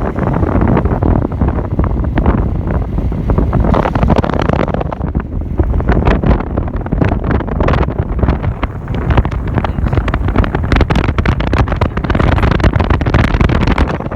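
Wind buffeting the microphone: a loud, continuous rumble with gusts and crackling.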